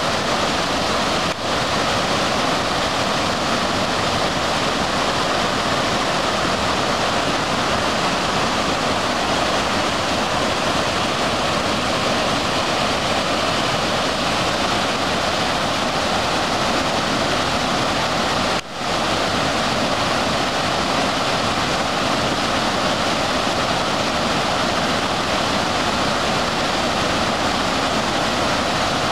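Flash-flooded creek water pouring over a low rock ledge in a loud, steady rushing roar, broken by two momentary dropouts, one near the start and one about two-thirds of the way through.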